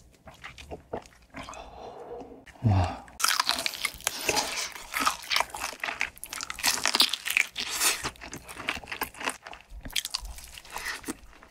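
Close-miked biting and chewing of crispy fried chicken, a dense, continuous crackling crunch from about three seconds in, after a quieter stretch of scattered small crunches and a short low thump.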